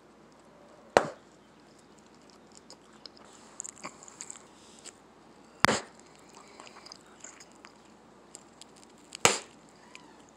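Bubble-gum bubbles bursting with sharp pops, three times about four seconds apart, with faint smacking of the gum at the lips in between.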